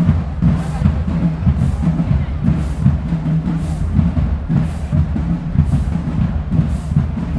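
Marching band drumline playing a cadence: heavy bass drums and drums pounding, with a crash about once a second.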